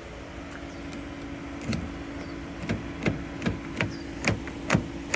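A motor running with a steady hum. About halfway through, a run of sharp clicks starts, roughly two to three a second.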